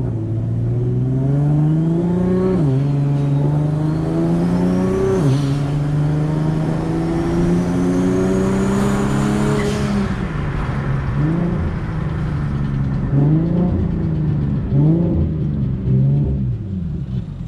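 Big-single-turbo Infiniti G37's 3.7 L V6 accelerating hard, the note climbing and dropping at two gear shifts, then pulling through a longer climb with a faint high whistle rising with the revs. After that the engine is blipped several times in short revs.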